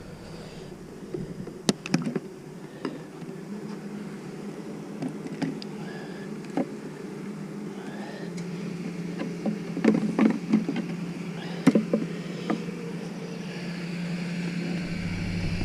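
Honeybees humming steadily in an opened hive, broken by scattered sharp clicks and knocks, several in a cluster about ten seconds in. A lower hum joins near the end.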